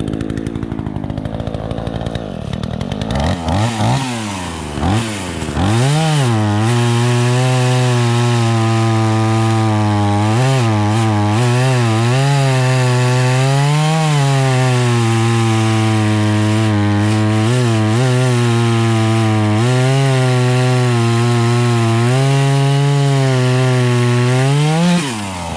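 Craftsman S205 46cc two-stroke chainsaw. Over the first few seconds it is revved up and down a few times, then it is held at full throttle for about 20 seconds while cutting, its pitch dipping now and then as the chain takes load. It drops back to idle near the end.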